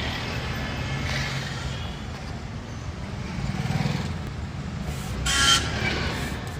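Motor vehicle engine running with a steady low rumble, and a brief louder noisy burst about five seconds in.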